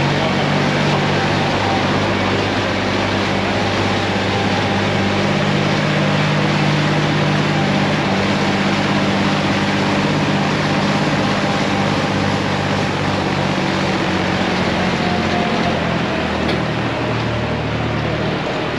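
Tractor engine running steadily as it tows a passenger trailer up a lane, heard from the trailer, with a broad rumble of the ride beneath it. The engine note changes near the end.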